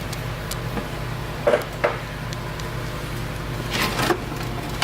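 Steady low machine hum with a few short metallic knocks and clanks, about a second and a half in and again near four seconds, from tools and parts being handled during an engine removal.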